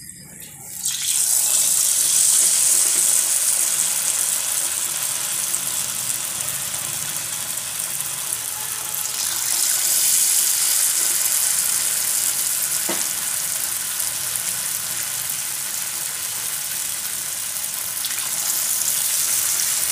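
Moong dal bajji batter deep-frying in hot oil in a kadai: a loud sizzling hiss starts about a second in as the first batter goes into the oil, then swells again twice, about halfway through and near the end, as more spoonfuls are dropped in.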